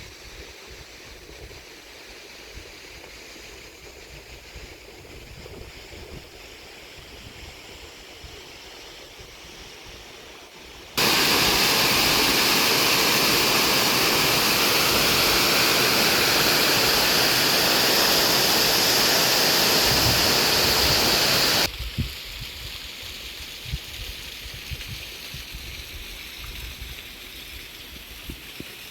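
Rushing water, a steady noise without pitch. About a third of the way in it cuts suddenly to a much louder, hissing rush for roughly ten seconds, then cuts back to the quieter flow.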